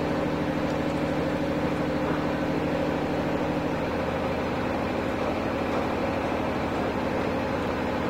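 Steady engine-like machine drone with a fast low throb. A steady hum within it stops about four seconds in.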